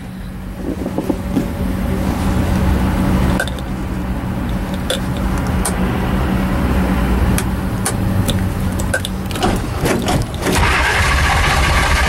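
Shelby Daytona's V8 being cranked on a hard start after sitting for three months, turning over steadily without catching. About ten and a half seconds in the sound turns louder and hissier as the engine nearly fires.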